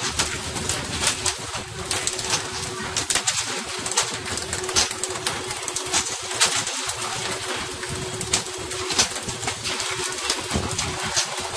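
Sea spray rushing along the side of a pole-and-line fishing boat, with frequent sharp slaps as tuna are swung aboard and hit the deck, over a steady low hum.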